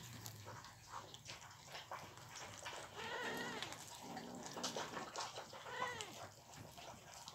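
Kittens chewing raw meat, with wet clicking and smacking throughout. Two short pitched cat cries come through, one about three seconds in and a falling one near six seconds.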